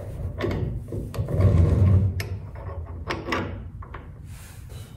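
Metal parts of a RANS S-21 tailwheel assembly being handled and fitted by hand: a series of clicks and knocks, with a heavier low thump between one and two seconds in.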